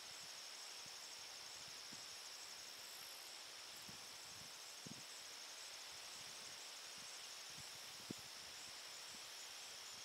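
Faint, steady, high-pitched insect chorus, a continuous trill with a faster pulsing trill above it. Two soft low knocks, about halfway and near the end.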